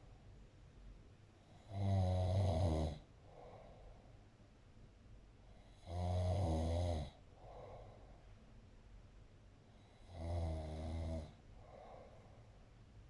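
Snoring in a slow, regular rhythm: three loud snores, each about a second long and roughly four seconds apart. A fainter breath comes between each pair.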